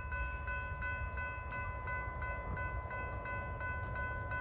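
Railroad grade-crossing bell ringing steadily, about three strokes a second, over a low rumble.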